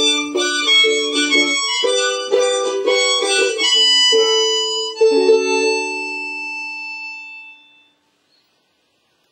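Ukulele strummed through the closing bars of a song, ending on a final chord that rings and fades away about seven to eight seconds in.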